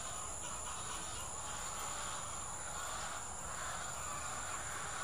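Steady chorus of insects trilling, with one continuous high-pitched tone over a constant background hum of the outdoors.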